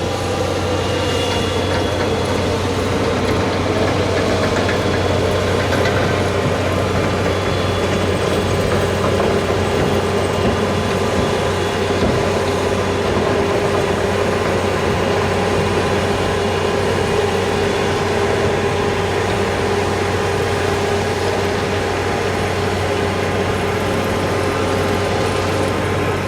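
A heavy vehicle engine running steadily, with a constant low hum and no change in pitch.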